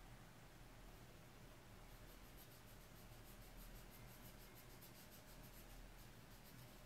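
Near silence: faint hiss with light, fast scratchy ticking from about two seconds in, like fingers rubbing against the knife or the phone close to the microphone.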